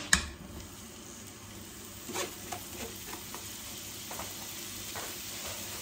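Sliced red onion and bell peppers tipped from a mesh sieve into hot oil in a frying pan, sizzling steadily. A sharp knock comes just as they go in, and a few lighter clicks follow.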